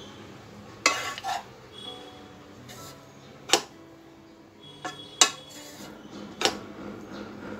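Wooden spatula stirring fried rice in a kadai (wok), knocking sharply against the pan about six times, loudest twice.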